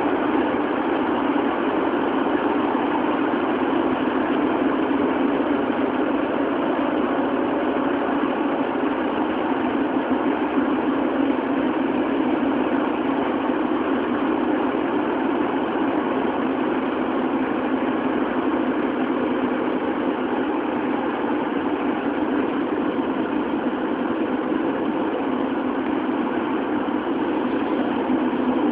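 Toei 10-000 series subway train (8th batch, GTO chopper control) running at steady speed through a tunnel, heard from inside the car: a steady rumble of wheels on rail with no change in pitch.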